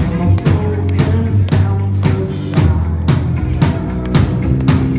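Live rock band playing loud: a drum kit keeping a steady beat under sustained low notes and guitar.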